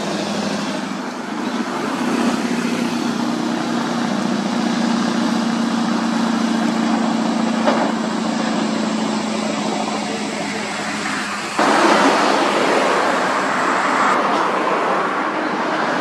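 Heavy truck's diesel engine running steadily as it pulls a lowboy trailer loaded with an excavator past and away. About eleven and a half seconds in, the sound switches abruptly to a louder, even rushing noise of road traffic.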